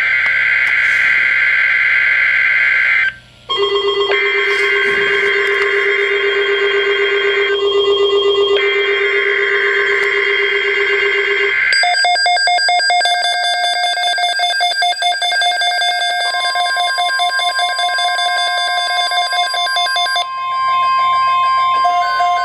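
Emergency Alert System header: three long bursts of screeching digital data tones. They are followed by a rapid pulsing electronic tone, which a steady high alert tone joins about two-thirds of the way through.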